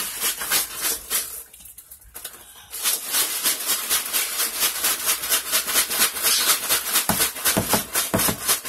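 A plastic bag of crushed ice being shaken hard, the ice rattling with quick, even strokes several times a second. The shaking stops for about a second and a half soon after the start, then resumes. The shaking is meant to freeze the ice cream mix.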